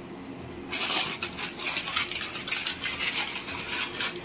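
Plastic noodle packet crinkling and crackling as it is opened and handled, starting about a second in and going on irregularly.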